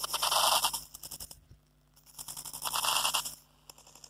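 Clear plastic poly bag crinkling and rustling under a person's hands, in two bouts about two seconds apart, then a few faint ticks.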